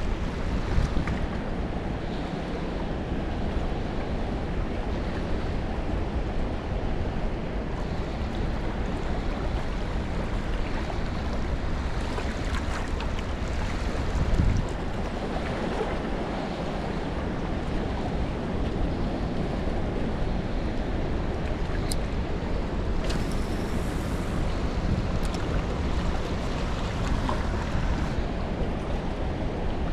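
Steady rushing noise of moving water, mixed with wind on the microphone, with a short knock about halfway through.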